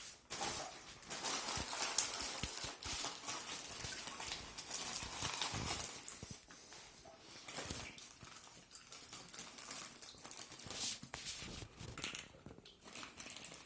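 Irregular clicking, knocking and rustling from plastic plumbing parts being handled, as the nuts of a water-treatment unit's bypass valve are screwed on by hand.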